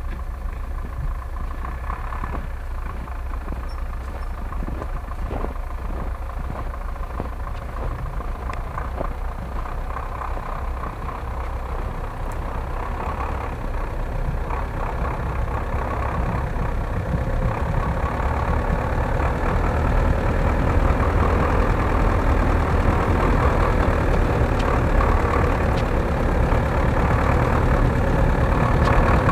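Off-road truck's engine running as the truck drives slowly along a snowy track toward the listener, growing steadily louder from about two-thirds of the way through as it comes close.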